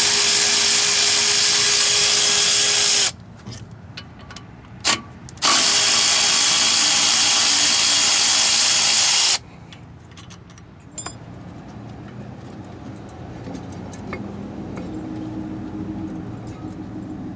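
Cordless power tool with a 10mm socket spinning out the brake caliper bolts: two steady runs of motor whine, each three to four seconds long, one at the start and one about five seconds in. Then quieter light metal clinks of parts being handled.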